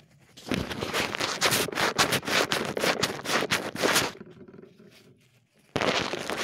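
Loud crackling and scraping of the phone being handled with its microphone rubbed, in two bursts: one of about three and a half seconds starting half a second in, then a second starting near the end after a short quiet gap.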